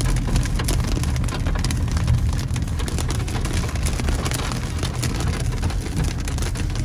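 Rain hitting a car's roof and windscreen as many small taps, heard from inside the cabin over the steady low rumble of the car driving on a wet road.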